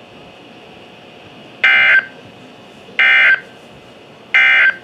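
Three short bursts of Emergency Alert System SAME digital data tones from a NOAA Weather Radio broadcast, about a second and a half apart, over a steady faint hiss. Their shortness marks them as the end-of-message code that closes an alert.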